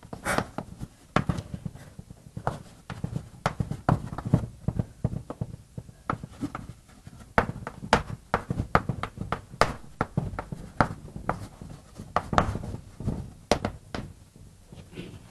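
Writing on a lecture-hall board: a run of irregular sharp taps and knocks, several a second, with dull thuds underneath.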